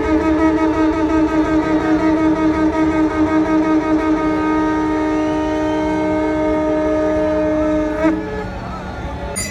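Conch shells (shankh) blown in the Ganga aarti ritual: a long, loud, horn-like tone that wavers at first, then holds steady and cuts off about eight seconds in.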